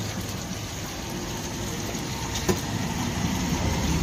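Steady low rumble of a running engine, with one short click about two and a half seconds in.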